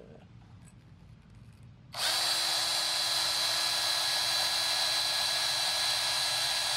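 Electric hand drill starting up about two seconds in and running at a steady, even pitch as its small bit drills into a metal octagonal longrifle barrel.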